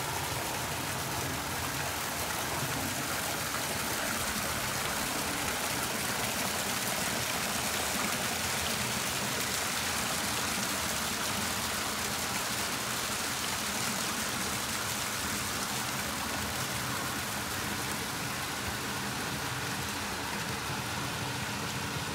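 Steady rush of water from a decorative courtyard fountain, an even splashing hiss with no breaks.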